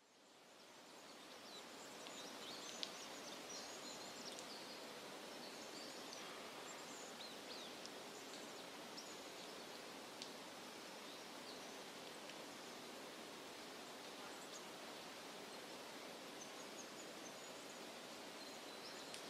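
Faint outdoor nature ambience: a steady even rushing hiss that fades in over the first two seconds, with scattered faint high chirps and a couple of sharp ticks, the first about three seconds in.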